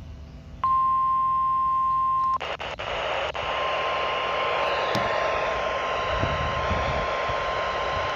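NOAA Weather Radio warning alarm tone, a single steady 1050 Hz tone from a weather radio receiver, sounding as a weekly alarm test. It starts clean under a second in, then from about two and a half seconds it carries on beneath loud static hiss with a few clicks.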